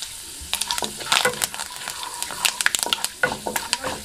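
Panch phoron seeds and bay leaves frying in hot mustard oil in a kadai: a faint sizzle under many sharp, irregular crackles and pops.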